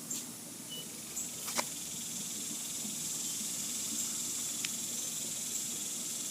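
Fidget spinner spinning on its freshly cleaned bearing, a steady high whirring hiss, with a couple of small sharp clicks.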